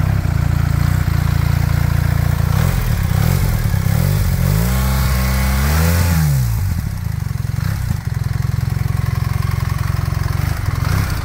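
BMW R 1300 GS's boxer twin engine idling, revved up in a rising blip about halfway through and dropping straight back to idle.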